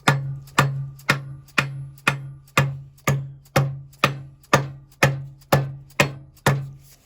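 Background music with a steady percussive beat, about two strikes a second, each followed by a fading low note; it stops suddenly near the end.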